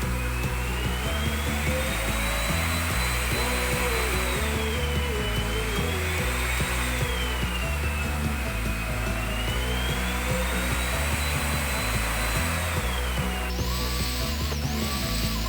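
Iris Ohyama corded canister-stick vacuum cleaner running, its motor whine slowly rising and falling in pitch, with a change in its sound near the end. Background music with a bass line plays under it.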